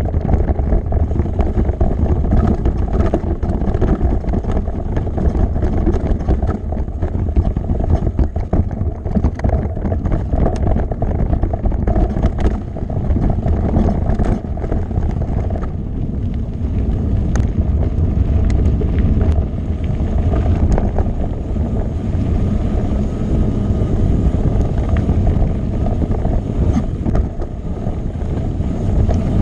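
Mountain bike rolling fast over a rocky trail: tyres on stone and gravel, the bike rattling with frequent clicks and knocks, under a steady rush of wind on the microphone.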